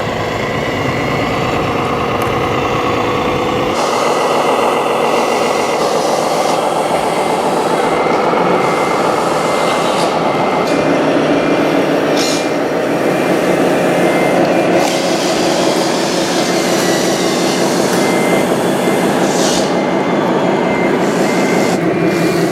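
Radio-controlled model trucks and construction machines running: electric motors and gearboxes whining, rising and falling in pitch with speed, with a short repeated beeping near the end.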